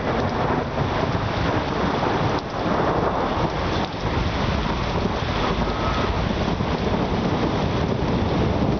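Heavy rain pouring steadily onto a paved patio and garden, with a deep rumble underneath.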